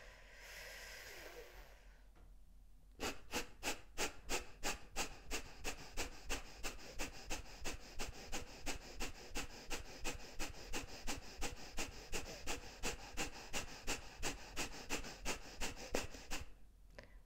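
A woman doing breath of fire (fire breathing): a soft breath in, then from about three seconds in a long, even run of short, forceful exhalations through the nose, about three a second, each pushed out by pulling in the stomach muscles.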